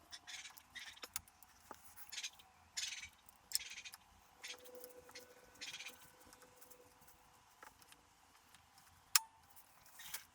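Faint clicks, light metallic clinks and short scraping rustles of hand tools and small parts being handled during motorcycle reassembly, with one sharper click a little after nine seconds.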